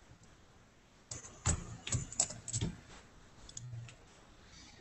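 Computer keyboard keys clicking: a quick run of keystrokes starting about a second in and lasting a couple of seconds, then a faint one near the end.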